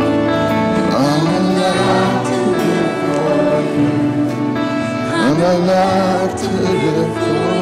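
Live gospel worship song: two acoustic guitars and a harmonica playing, with voices singing.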